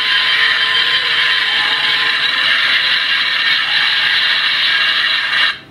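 TrekWorks Seaview sound-effect board playing its first effect through its small speaker: a loud, steady, dense mechanical-sounding noise that cuts off suddenly near the end.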